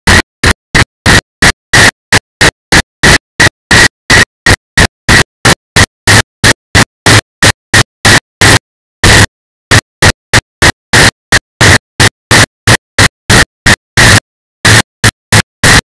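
Loud rushing noise chopped into short bursts about three to four times a second, with dead silence between each, and a couple of longer gaps: a stuttering, broken audio track with dropouts.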